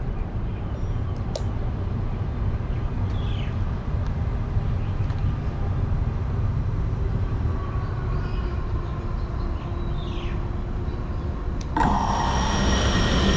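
Steady low outdoor rumble with two faint, high falling chirps. Near the end an FPV quadcopter's motors spin up at idle with a sudden steady multi-tone whine, just before throttling up for takeoff.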